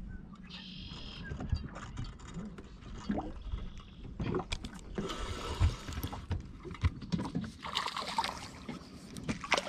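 Spinning reel being cranked as a hooked bass is reeled in to the boat, with scattered clicks and knocks of rod and boat. Brief splashy rushes come in the second half.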